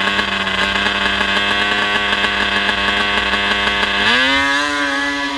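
Racing snowmobile engine running at steady revs on the drag start line, then revving up about four seconds in and holding at the higher pitch.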